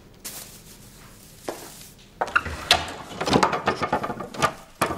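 Rustling and clattering of objects being handled and moved about, with several sharp knocks, starting about two seconds in after a couple of single clicks.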